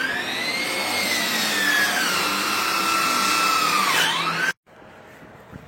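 Electric power saw cutting wood: the motor whines up to speed, its pitch sags as the blade bites into the board, then drops as the cut ends. The sound cuts off abruptly about four and a half seconds in.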